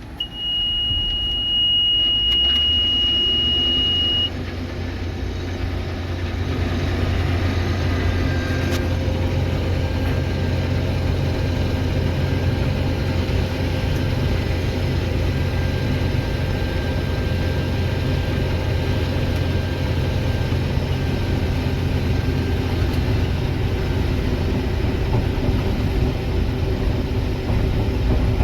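Combine harvesting soybeans, its engine and threshing running steadily as heard from the cab. A steady high beep sounds for about the first four seconds, and the machine's sound builds a few seconds in and then holds steady.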